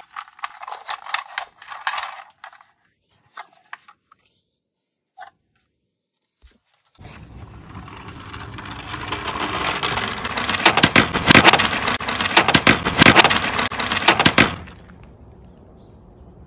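A plastic toy police car handled with a few clicks and rattles, then, about seven seconds in, its plastic wheels rolling down a sloped wooden board: a rumbling rattle with many sharp clicks that grows louder and stops abruptly near the end.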